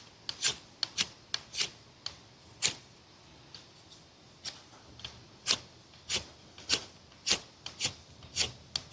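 Spine of an Ozark Trail 11-inch fixed-blade knife scraped down a ferrocerium rod in short, sharp strokes, about two a second with a brief pause midway, to throw sparks. The spine is too dull to strike it well.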